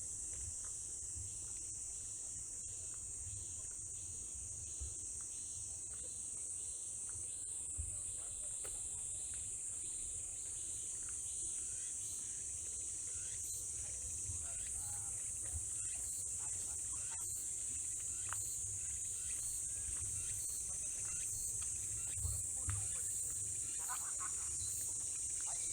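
Evening insect chorus: a steady, high-pitched continuous trill that holds throughout, with a low rumble underneath.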